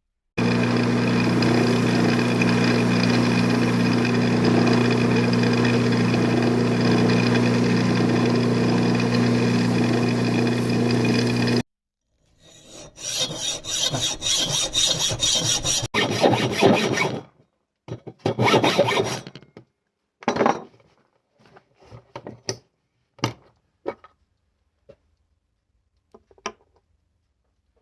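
Belt grinder running steadily with a worn 240-grit belt for sharpening a knife, a steady hum under a hiss, cutting off suddenly about 11 seconds in. It is followed by a few seconds of rough rasping strokes, then scattered short scrapes and clicks.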